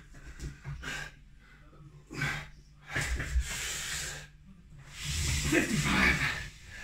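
A man breathing hard from exertion, mid-set on a lat pulldown: a run of forceful, hissing exhales about a second apart, the longest and loudest one about five seconds in with some voice in it.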